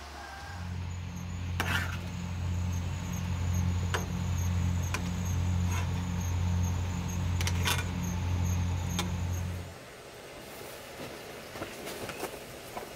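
Electric motor running with a steady hum and a faint high whine, with several sharp clicks or knocks over it. The motor cuts off nearly ten seconds in.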